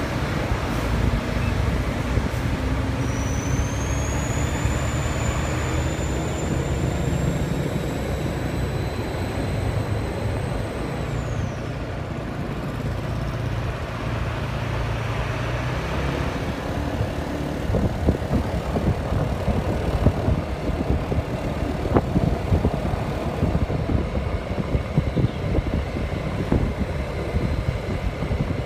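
Large bus's diesel engine running and pulling away, its pitch climbing slowly, with a high whine that rises for several seconds and drops off about eleven seconds in. In the second half, rattling road and traffic noise with irregular knocks.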